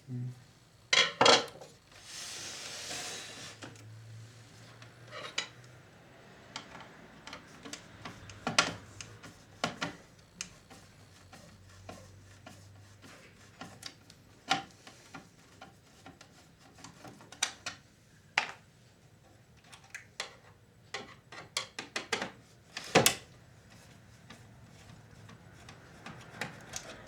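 Scattered clicks, taps and knocks of plastic and metal parts and tools being handled while a VCR is taken apart, with a brief hissy scrape about two seconds in and a loud knock near the end.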